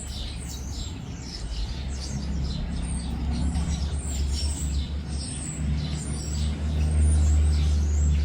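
Small songbirds chirping and calling over a low engine rumble, as of a vehicle, that grows louder towards the end.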